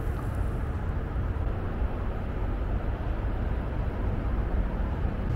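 Steady rush of distant freeway traffic with a constant deep rumble, unbroken throughout.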